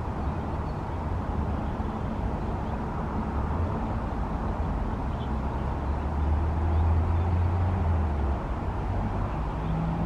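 Low steady background rumble with a deep hum that swells about six seconds in and eases off a little after eight.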